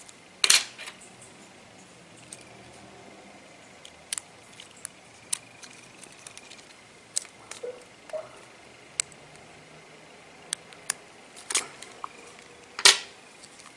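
Scattered small clicks and taps of a plastic spudger and metal tweezers working against a phone's metal frame and small glued parts while prying them loose. The loudest clicks come about half a second in and near the end.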